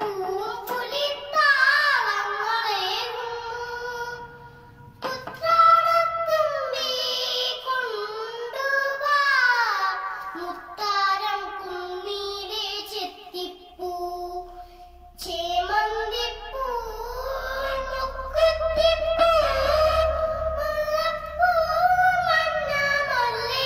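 A young girl singing solo into a microphone: long melodic phrases with wavering, ornamented notes, broken by short pauses for breath.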